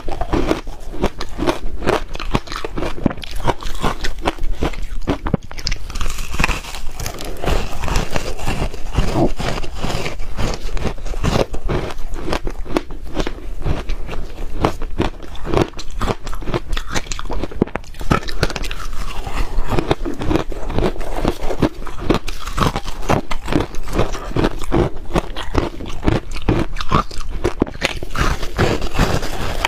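Crushed ice being bitten and chewed close to a clip-on microphone: a dense, continuous run of crunches and crackles.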